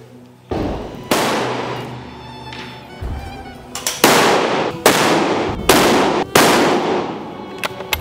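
Rifle shots, each a sharp crack that rings off for a moment: two in the first second or so, then four about a second apart in the second half, over background music.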